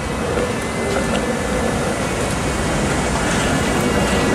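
TTC articulated light rail vehicle (ALRV) streetcar passing close by on its rails: steady wheel and motor noise with a low hum and a faint high whine.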